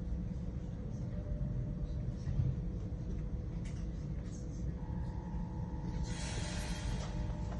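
Steady low rumble inside a regional train's passenger car, with a faint steady hum; about six seconds in, a burst of hissing lasting about a second.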